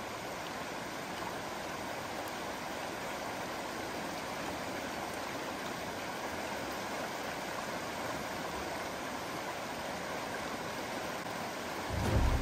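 River water rushing steadily over a shallow, rocky riffle. Background music comes in just before the end.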